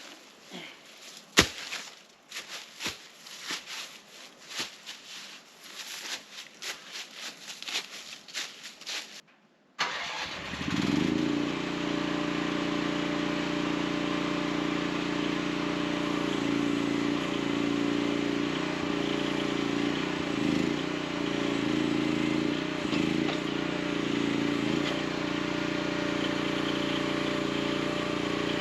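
Scattered clicks and rustling handling noises with one sharp knock, then, about ten seconds in, a mini excavator's engine starts and runs steadily at idle.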